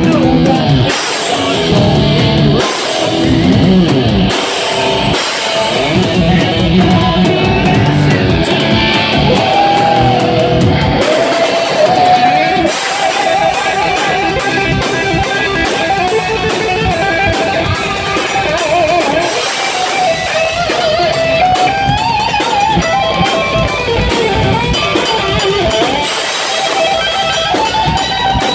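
Live heavy metal band: an electric guitar lead line with bends and vibrato over a drum kit and rhythm parts.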